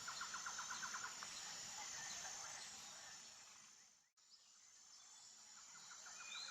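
Faint nature ambience of birds and insects: a rapid run of chirps over a steady high insect buzz. It fades out to silence about four seconds in and fades back in near the end.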